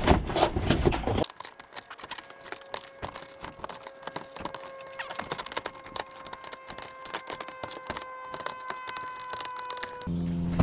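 Irregular light clicks and rustling from hands handling solar cables, small fittings and tools against the plastic tarp sheeting, with a faint steady high tone underneath.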